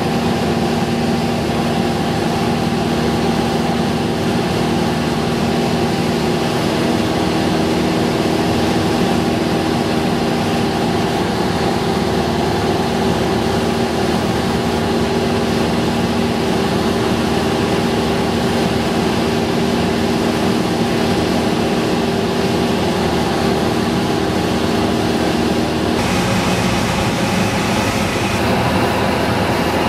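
Cessna 172 Skyhawk's piston engine and propeller droning steadily in cruise, heard from inside the cockpit. Near the end the sound shifts abruptly to a different mix of tones.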